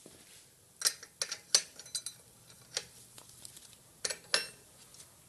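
Steel open-end spanners clinking on the brake lathe's hub-pin lock nut and knob as the lock nut is jammed up against the knob. A string of sharp metallic clicks, loudest about a second in and again about four seconds in.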